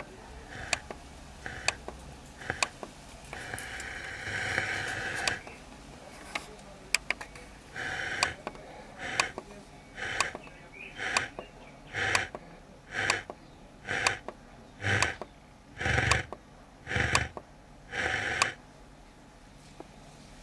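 Stock Ford Ranger car radio being tuned step by step up the medium-wave band: sharp clicks about once a second, a longer burst of noise around four seconds in, then short bursts of received sound about once a second, each about half a second long, as it passes frequencies with nothing clear on them.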